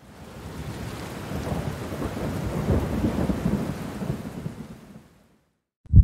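Thunderstorm sound effect: steady rain with low rolling thunder that swells in the middle and fades out about five seconds in. A single low thump starts right at the end.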